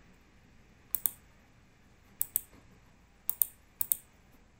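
Sharp clicks from a computer's keys or mouse buttons. They come in four quick pairs, roughly a second apart, with only faint room tone between them.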